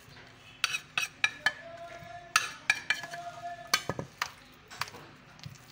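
A metal spoon scraping and knocking against a steel bowl while mashing boiled potatoes, in irregular clinks and scrapes.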